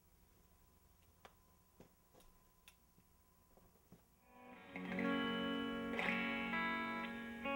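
A few faint clicks, then about four seconds in a distorted electric guitar comes in through an amplifier, playing loud held chords.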